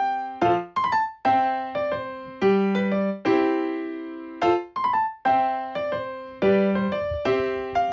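Background music: a light tune of short struck notes in a steady rhythm, each note starting sharply and dying away.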